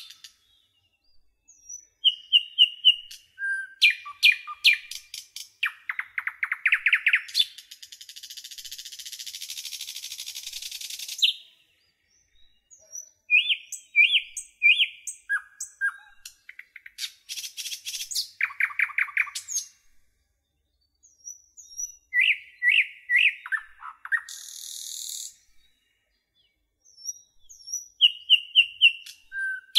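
Songbird calling in short bursts of high chirps and fast trills, the phrases separated by brief pauses. A few seconds of steady hiss come about a quarter of the way in, and a shorter one near the three-quarter mark.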